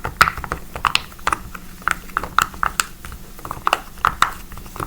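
Silicone bubbles of a popsicle-shaped pop-it fidget toy being pressed one after another: an uneven run of short pops, about three or four a second.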